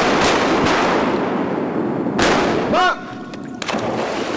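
Shotguns firing at mallards in flight over flooded timber: several sharp shots, the loudest about two seconds in, each trailing off in echo among the trees. The shooting stops and the level drops near three seconds in.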